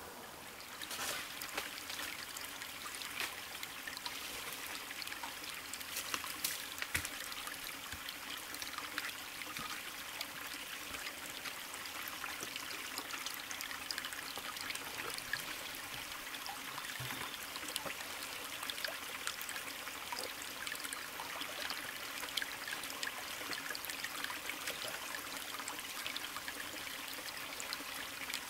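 Small bush stream trickling over rocks, a steady splashing trickle that begins about a second in.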